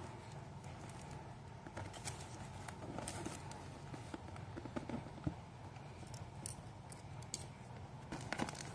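A plastic-wrapped cardboard box being turned over in the hands: faint crinkles and small clicks of the cellophane and card, scattered and thickest about three seconds in and near the end, over a steady low hum.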